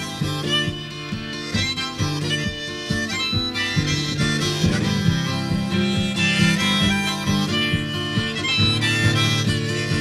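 Harmonica playing the lead over a live band, with guitar and drums underneath.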